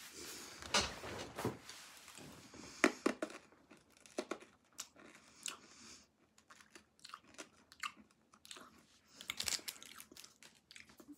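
A Toxic Waste hard sour candy being chewed and crunched in the mouth: irregular crunches and clicks, with denser runs in the first few seconds and again near the end.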